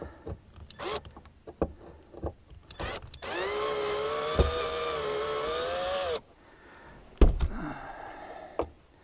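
Cordless drill/driver motor whining steadily for about three seconds, its pitch rising as it spins up, with scattered handling clicks and knocks before it and a single thump about seven seconds in.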